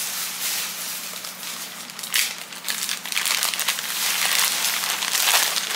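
A plastic shipping mailer being opened and handled: irregular crinkling and rustling with sharp crackles. It grows louder and busier in the second half.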